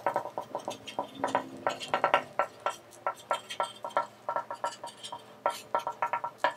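Marker writing on a glass lightboard: a quick run of short, squeaky strokes and taps, several a second, as an equation is written out.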